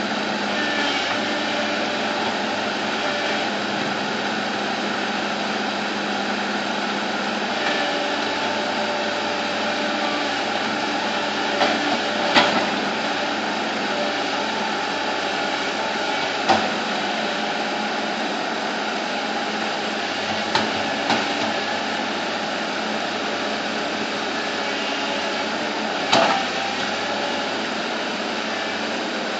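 Bulldozer's diesel engine running steadily, with a few sharp knocks, the loudest about twelve seconds in and another about twenty-six seconds in.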